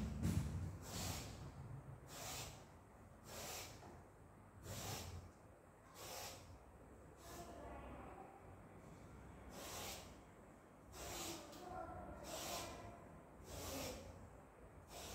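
Rhythmic scraping strokes of food being peeled by hand, about one stroke every second and a quarter.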